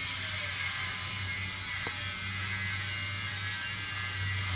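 Thin plastic bag rustling steadily as a cat squirms with its head inside it, over a low hum.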